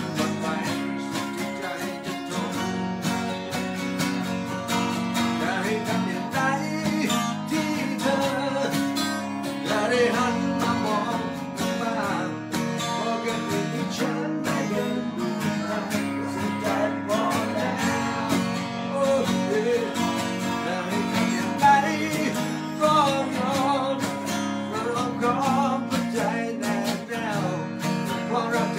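Two acoustic guitars strummed together while a man sings.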